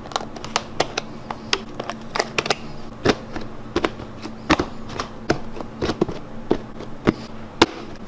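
Plastic food-storage bins and their snap-on lids being handled and pressed shut: a string of irregular sharp clicks and taps, over a faint steady hum.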